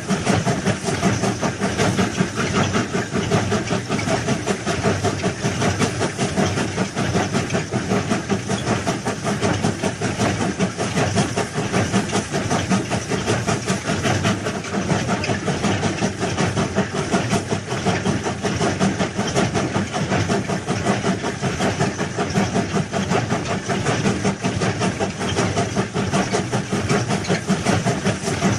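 Heavy engine running steadily with a dense, fast rattle that holds the same level throughout.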